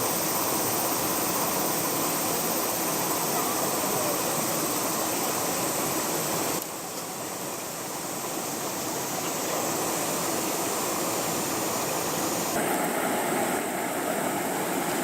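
Rushing mountain-stream water, a steady noise whose level and tone change abruptly about six and a half seconds in and again near thirteen seconds.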